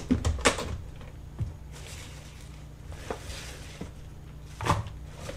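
Rustling of salad greens being picked out by hand from a clear plastic clamshell container, with a few sharp clicks and knocks of the plastic being handled. The loudest knock comes near the end.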